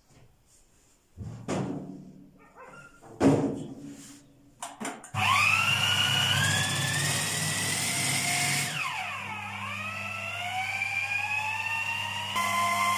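Plastic clicks and knocks as a food processor's bowl and lid are fitted, then about five seconds in its motor starts and runs, the whine rising in pitch as it speeds up, dipping briefly near nine seconds and climbing again. It is beating sponge cake batter.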